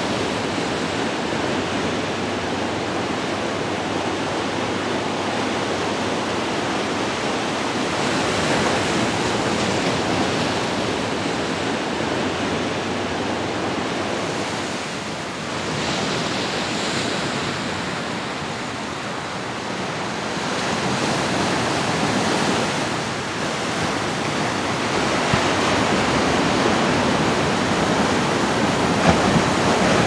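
Ocean surf: waves breaking and washing in a steady rush, swelling and easing every several seconds.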